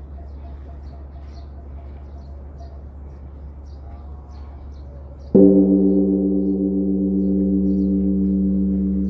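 Large bronze Korean Buddhist temple bell struck once by a swinging wooden log about five seconds in, during the temple's evening bell-striking. It then rings on with several steady tones that pulse slowly as they fade. Birds chirp faintly before the strike.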